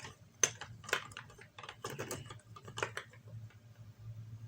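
Small plastic LEGO pieces clicking as they are handled and fitted, a few scattered clicks spaced roughly half a second to a second apart.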